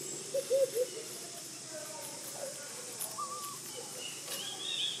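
Animal calls: three short, loud cooing notes about half a second in, then a few fainter, higher chirping calls later on, over a steady high background hiss.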